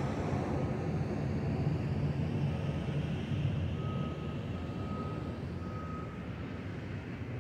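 Jet airliner passing overhead: a low, steady engine noise that slowly fades away.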